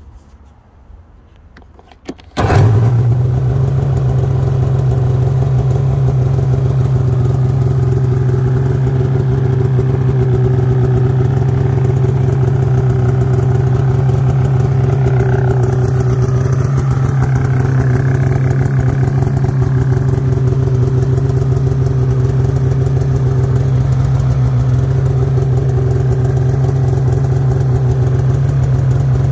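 Polaris Switchback Assault snowmobile's two-stroke engine starting suddenly about two seconds in, then idling steadily at about 1950 rpm.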